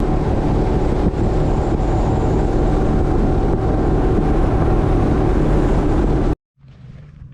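A boat running across the water at speed: steady engine noise mixed with heavy wind buffeting the microphone. It starts suddenly and cuts off abruptly about six seconds in.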